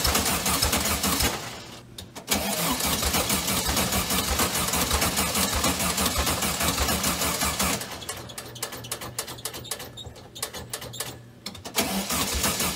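An engine being cranked over by its starter, a fast even chugging that breaks off briefly about a second and a half in, then goes on. It turns quieter and broken for several seconds in the second half, then comes back strong near the end.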